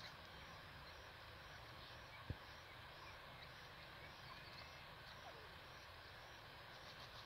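Near silence with a faint steady outdoor hiss, and a few faint scratchy rustles from a grey francolin dust-bathing in loose dry soil. A single sharp low thump about two seconds in is the loudest sound.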